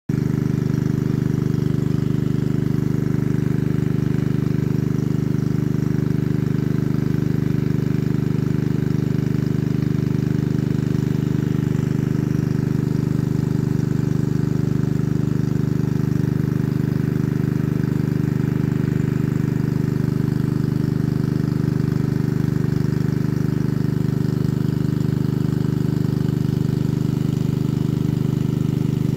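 An engine idling steadily: a constant low hum that does not change.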